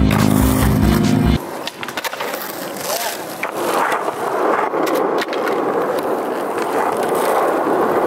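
Background music with a beat stops about a second and a half in, leaving the sound of a skateboard's wheels rolling over a smooth painted court, with a few sharp clacks from the board.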